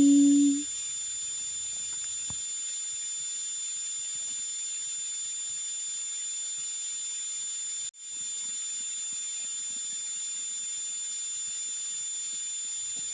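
A steady high-pitched electronic whine over background hiss, unbroken except for a brief dropout about eight seconds in.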